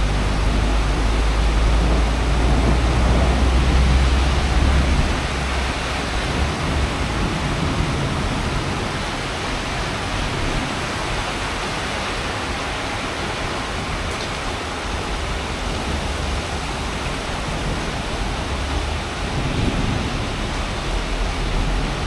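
Heavy rain pouring steadily, a dense even hiss, with a deep low rumble that is loudest over the first five seconds and swells again briefly near the end.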